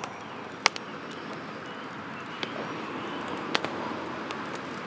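People drinking coffee from cups: a few short, sharp gulping clicks from the throat over a steady outdoor background hiss.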